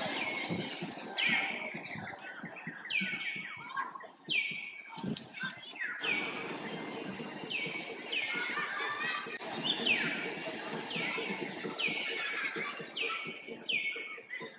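A run of short, high-pitched animal calls, each falling in pitch, coming about once a second, over a steady high insect drone.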